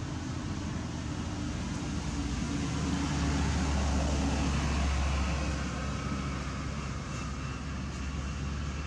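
A motor vehicle's low engine rumble swells and fades, loudest from about three to five seconds in, over steady outdoor background noise.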